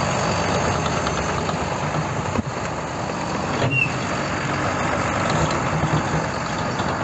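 Farm tractor's diesel engine running steadily under load while towing a tracked armoured vehicle on a cable.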